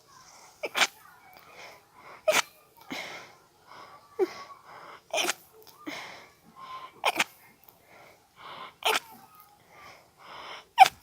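A person's stifled sneezes in an allergy sneezing fit: about six sharp, held-in sneezes less than two seconds apart, with breathy build-up inhales between them. The last one, near the end, is the loudest.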